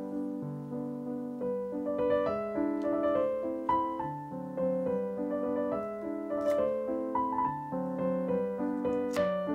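Background piano music: a melody of held notes that change about every half second over lower chords.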